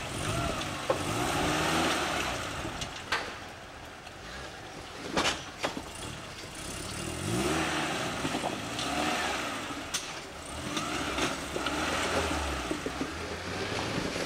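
Suzuki Samurai rock crawler's engine revving up and falling back again and again as it crawls over boulders, with a few sharp knocks now and then.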